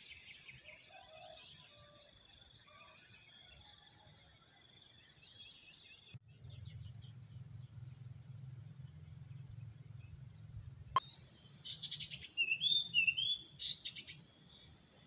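Insects chirping in a fast pulsed trill over a steady high buzz, the chorus changing abruptly about six seconds in and again near eleven seconds in, with a few short bird calls near the end.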